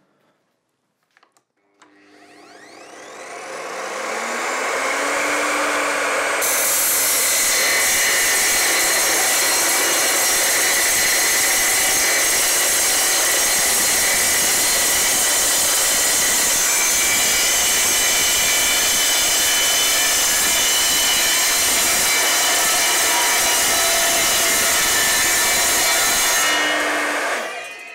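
Evolution R255SMS mitre saw spinning up, then its carbide-tipped blade cutting through a 50 mm square steel tube with 2.8 mm walls. The cut is a loud, steady, high-pitched screech of metal that starts a few seconds in and lasts about twenty seconds, then the saw winds down near the end.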